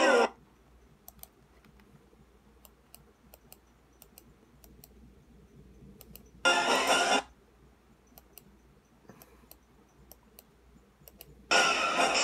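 Faint, scattered clicks of a laptop being worked with keys and mouse. Two short loud bursts of cartoon-film soundtrack come through the laptop speakers, one about six and a half seconds in and one near the end.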